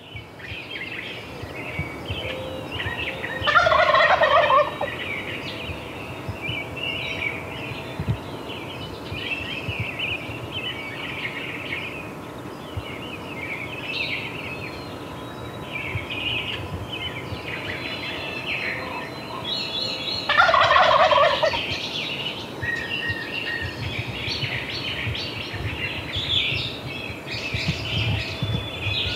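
A Merriam's wild turkey gobbler gobbling twice from the roost, once about three seconds in and again about twenty seconds in, over steady small-songbird chirping of the dawn chorus.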